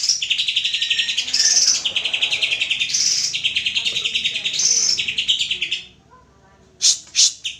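Greater green leafbird (cucak ijo) singing a long, fast run of rapidly repeated high notes with brighter, higher phrases mixed in. It breaks off about six seconds in, followed by two short sharp sounds near the end.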